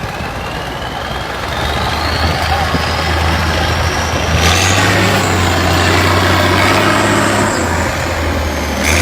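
An engine running steadily, growing louder about a second and a half in, with a thin high whine rising in pitch over the first few seconds.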